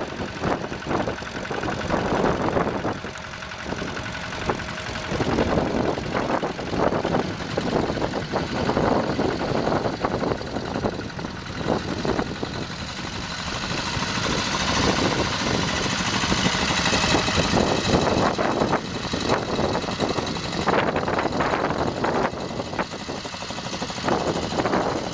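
Tractor engine running steadily, getting louder and hissier for a few seconds around the middle.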